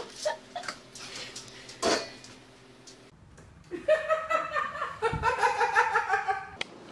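A couple of light knocks, then a woman laughing for about three seconds in a quick, rhythmic run of pulses.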